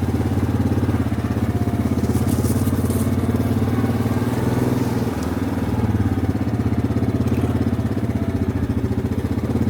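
Four-wheeler (ATV) engine running steadily at low speed while being ridden, with a slight dip in revs about halfway through.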